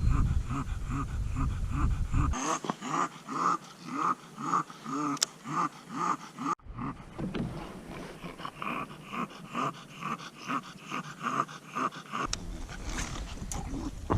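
Bulldog breathing noisily in steady rhythmic pants, about two breaths a second, with a brief break about six and a half seconds in.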